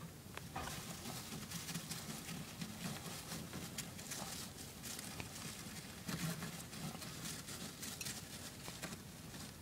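Russian dwarf hamster digging and burrowing in loose wood-shaving bedding: a dense, irregular scratchy rustle of shavings being pushed about.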